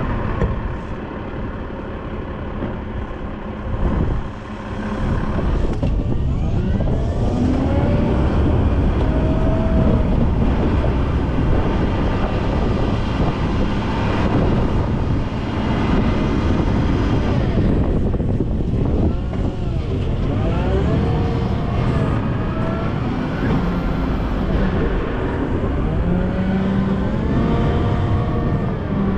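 Volvo L90F wheel loader's diesel engine running under work, its pitch rising and falling again and again as the revs go up and down while it clears snow.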